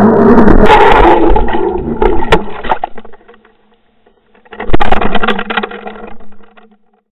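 Rumbling, rushing noise picked up by a Water Wolf underwater fishing camera through its housing, with a sharp knock about two seconds in. The noise fades out near three seconds, then a sudden loud knock sets off a second burst of rushing that fades away.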